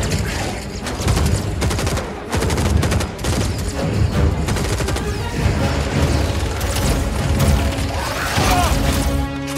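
Battle sound effects from a film soundtrack: rapid volleys of gunfire and booms over a musical score, with the score coming forward near the end.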